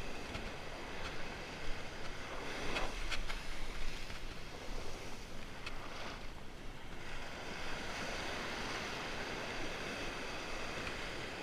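Small surf waves breaking and washing up the beach, with wind on the microphone and a few light clicks.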